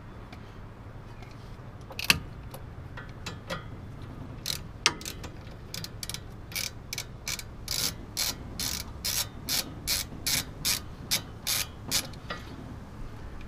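Ratchet wrench clicking as a bolt is backed out: a few scattered clicks at first, then a steady run of about three clicks a second for several seconds. The bolt is the one holding the front brake line bracket to the hub, being removed during a front brake pad change.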